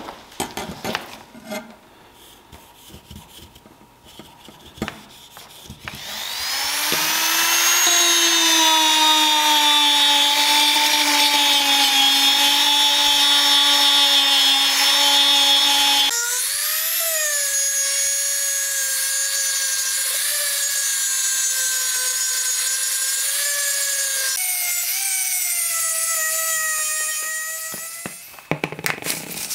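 Small handheld rotary tool with a felt polishing wheel buffing metal compass parts with polishing paste. After a few light knocks, the motor spins up with a rising whine and runs steadily. Its pitch jumps higher about halfway, shifts again later, and it winds down near the end.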